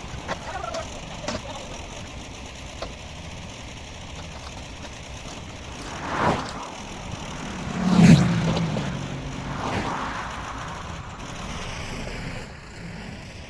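Tractor engine running steadily, swelling louder three times about two seconds apart, the middle one the loudest.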